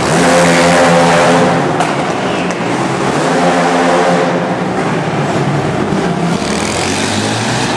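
Racing quad (ATV) engines revving as the quads race past close by, loudest about half a second in and again about three and a half seconds in.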